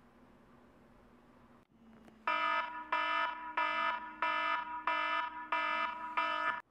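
Smartphone alarm going off, a repeating electronic alarm tone in even pulses about one and a half times a second, starting about two seconds in.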